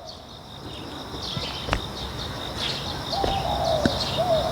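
Small birds chirping and twittering on and off, with a lower, arching call twice near the end. A sharp thud comes about two seconds in, and a softer one near the end.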